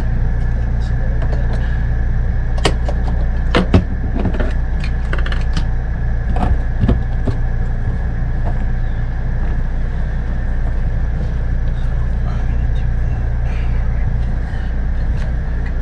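A steady low mechanical hum with a thin constant high whine over it, broken by scattered clicks and knocks, the sharpest few about three and a half seconds in.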